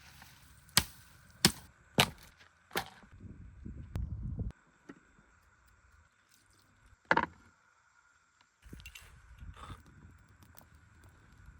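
A series of sharp knocks or cracks: four in quick succession within the first three seconds and one more about seven seconds in, with low rustling and handling noise between them.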